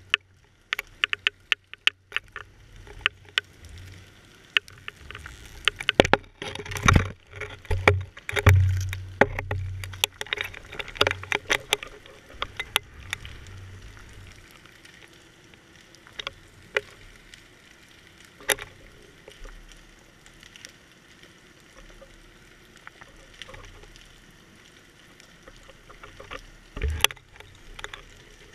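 Irregular clicks, taps and knocks with bursts of low rumbling, heard through a GoPro's waterproof housing on a swinging deep-water fishing rig: the housing and tackle knocking as the rig is jerked about. The clicking is busiest from about six to thirteen seconds in, and there is one sharp knock near the end.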